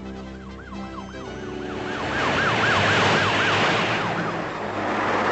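Cartoon police car sirens: a fast, repeating rise-and-fall wail, about three cycles a second, over a rushing noise. The sound grows louder over the first three seconds as the cars drive up.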